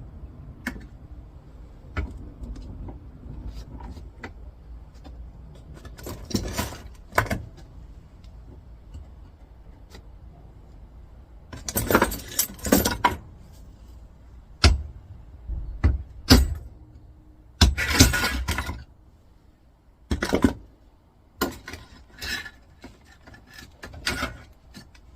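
Hammer tapping on the little motor's welded metal casing from an old electricity meter: sharp metallic strikes, some single and some in quick runs of several, with pauses between. The blows are meant to break the casing's weld so it can be opened.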